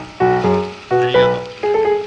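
Background music: chords of plucked or keyboard-like notes struck about twice a second, each fading before the next.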